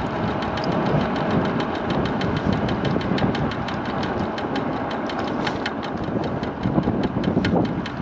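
Riding noise of a MiniPro Mi716 electric scooter under way: a steady low rumble and rush, with light clicks a few times a second.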